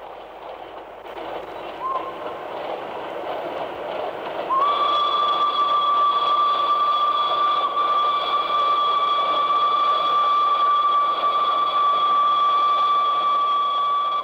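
Steam locomotive whistle: a short toot about two seconds in, then one long, steady blast from about four and a half seconds on, over the running noise of the train.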